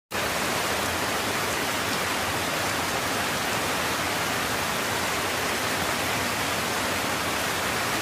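Heavy rain and rushing floodwater on a flooded street: a steady, dense hiss with no let-up.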